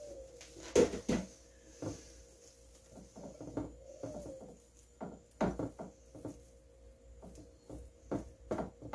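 Hands spreading pieces of cooked chicken in a ceramic casserole dish: irregular soft taps and clicks of fingers and meat against the dish, with a louder knock about a second in, over a faint steady hum.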